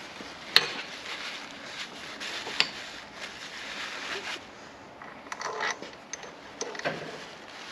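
Sharp metal clicks and scraping as the aftermarket slip-on muffler is worked into place on the exhaust. Two crisp clicks come early, then rubbing and clattering near the end.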